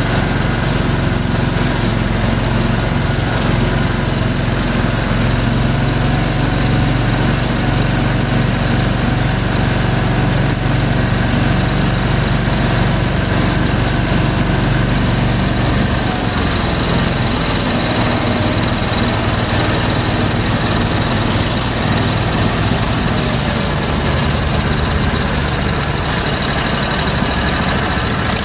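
Engine of an Argo 6x6 amphibious ATV running steadily while the machine swims through river water; its low note shifts about halfway through.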